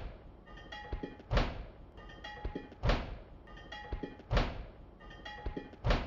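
Cartoon sound effect of a hip bumping against a refrigerator: four thunks about a second and a half apart, over light background music.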